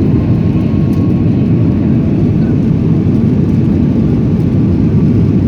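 Airliner cabin noise heard from inside the cabin: a steady low rumble of the engines and the plane's running, even throughout with no changes.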